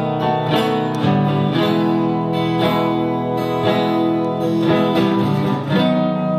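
Acoustic guitar strummed in a steady rhythm of chords, about two strums a second, with no singing.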